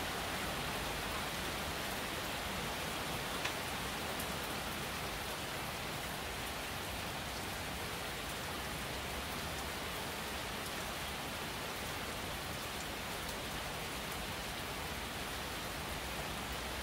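Steady rain falling, an even continuous hiss, with one small click about three and a half seconds in.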